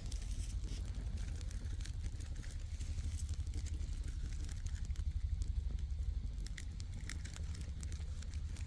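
Small fire of birch bark and fatwood kindling crackling, with scattered sharp pops over a steady low rumble.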